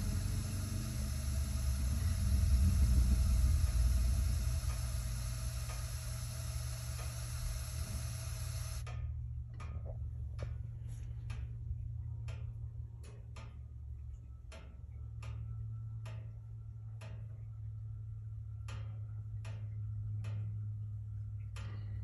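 Gas water heater burner giving a low rumbling whoomph that swells and dies away over about two seconds, the exploding backfire-like ignition the owner reports is still there after a new thermocouple. The burner keeps up a low hum, and from about nine seconds in sharp ticks come roughly once or twice a second.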